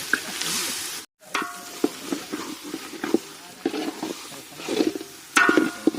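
Food frying in oil in a pan, sizzling, while a spatula stirs it and scrapes and knocks against the pan. The sizzle is steady for about a second, then gives way to irregular scrapes and clacks, loudest near the end.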